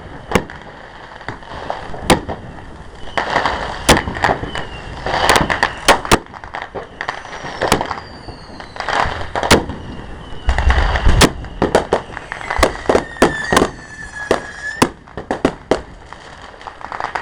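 Fireworks going off in quick succession: many sharp bangs and crackles, with several whistling shells gliding down in pitch and one long whistle about two-thirds of the way through.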